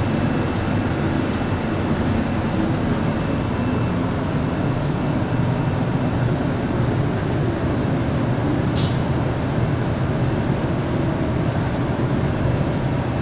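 Steady low rushing noise of a glassblowing hot shop's gas-fired glory hole burner and blowers running, with a brief sharp tick about nine seconds in.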